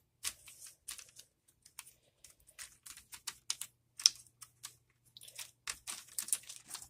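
Irregular clicks and rustles of a membrane keyboard's plastic membrane sheet and case parts being handled and fitted together, with one sharper click about four seconds in.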